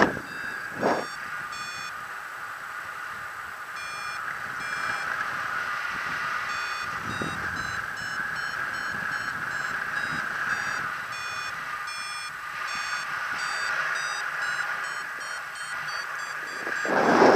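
Paragliding variometer beeping: short beeps that shift in pitch and spacing, the audio signal of lift while the glider climbs in a thermal. A steady hiss of airflow runs under the beeps, and a short loud rush of noise comes near the end.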